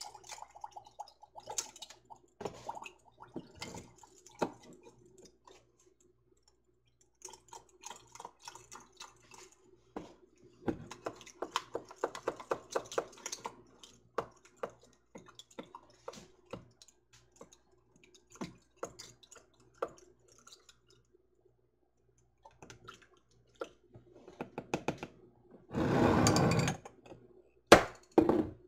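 Kitchen handling sounds from glass canning jars and utensils being worked: scattered light clicks and knocks. Near the end comes a loud rush lasting about a second, then a single sharp click.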